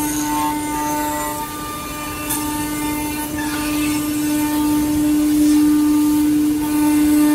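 Woodmaster 5-axis CNC machining centre's spindle running steadily, its router bit milling a wooden chair backrest: a constant humming tone under the rushing noise of the cut, rising and falling a little as the head moves along the piece.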